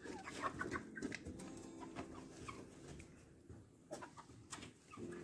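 Young chickens clucking quietly in a coop, with scattered faint clicks and rustles.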